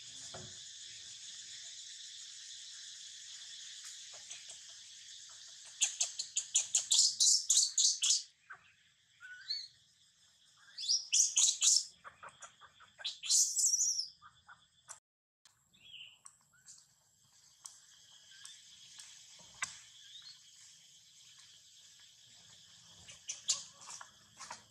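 A steady, high insect drone for about the first six seconds. It is followed by three loud bouts of rapid, high-pitched chirping calls, then quieter scattered chirps over a fainter drone.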